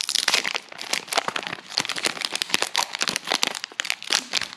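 Foil wrapper of a Pokémon card booster pack crinkling as it is handled and torn open, a dense, irregular run of crackles.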